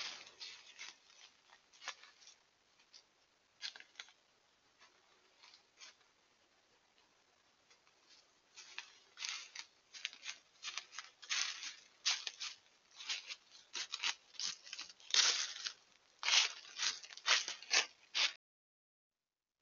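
Dry leaf litter crunching and rustling under a deer's hooves as it walks, in irregular crackly bursts that grow louder and more frequent after about eight seconds as the deer comes close, then cut off suddenly near the end.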